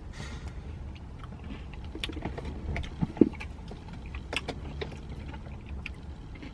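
Scattered clicks and taps of a spoon working in a plastic Blizzard cup, over a low steady hum. A brief squeak about three seconds in.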